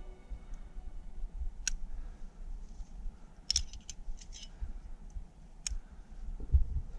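Climbing hardware clinking: a handful of sharp clicks, with a quick cluster of them about three and a half seconds in, over a low rumble.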